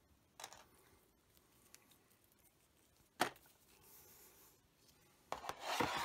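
Hands handling a charging cable and packaging in a cardboard box. There is a soft click near the start, a sharp tap about three seconds in, and a stretch of rustling near the end.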